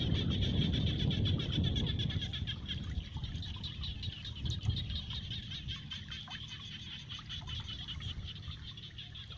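A steady, high-pitched, fast-pulsing wildlife chorus, with a low rumble underneath that is strongest in the first few seconds and then fades.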